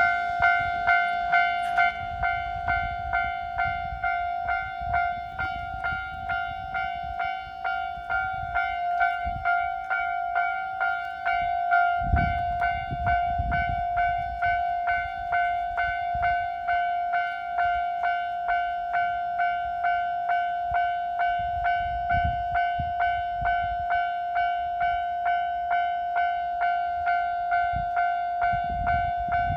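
Japanese level-crossing warning alarm ringing its electronic bell tone over and over at an even pace, with the low rumble of trains running past on the track, heaviest about twelve seconds in and again near the end.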